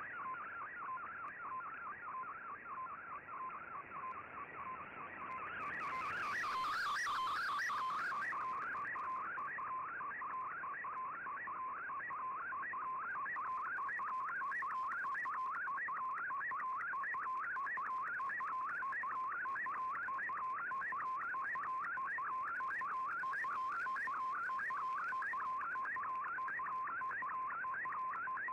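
Shortwave digital-mode picture transmission (MFSK picture) heard through a communications receiver: a tone sweeping up in pitch again and again, several times a second, each sweep one line of the image being decoded. The signal flutters and fades for the first few seconds, then holds steady.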